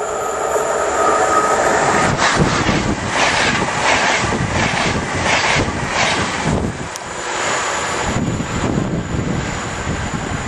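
Finnish InterCity passenger train passing at speed close by: a rising rush as it approaches, then a quick regular clatter of wheels on the rails as the bogies of each coach go by, fading as it draws away.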